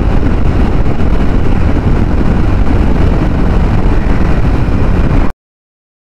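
Motorcycle riding at speed on a highway: steady engine and road rumble with wind blowing across the mounted camera's microphone. It cuts off abruptly about five seconds in.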